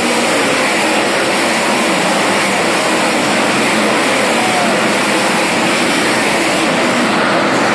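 A field of dirt-track race cars running at racing speed on the oval, heard as a loud, steady drone of many engines at once with no single car standing out.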